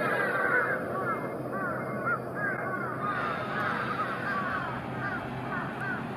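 A flock of crows cawing, many short calls overlapping one another without a break, over a steady background noise.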